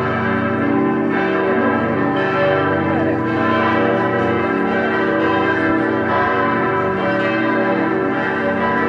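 Full peal of six large Grassmayr-cast church bells, tuned G, A, B, D, E and G, the largest weighing about 5.8 tonnes, all ringing together. Their overlapping strokes merge into a continuous wash of many tones at a steady level.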